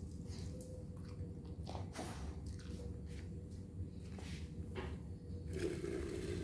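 A Dandie Dinmont terrier's claws clicking lightly on a tiled floor: a few scattered, separate clicks over a faint steady hum. Near the end a louder rustling hiss comes in.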